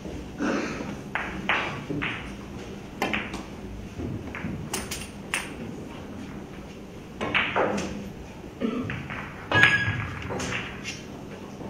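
Pool balls clacking on a billiard table: a cue strike about half a second in, then a string of sharp knocks and clicks as balls hit each other and the cushions. A sharp ringing click near the end is the loudest.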